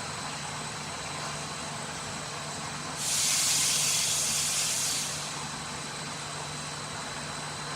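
Polyester wadding carding machine running with a steady hum and thin high whine. About three seconds in, a loud hiss starts and lasts about two seconds, then fades.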